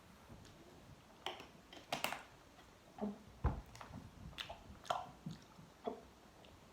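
A person gulping and swallowing water: a string of short, faint gulps, about eight in all at uneven intervals.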